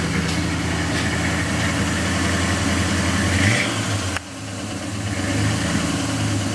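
Engine of an old square-body GMC pickup idling steadily, with a brief rise in engine speed about three and a half seconds in.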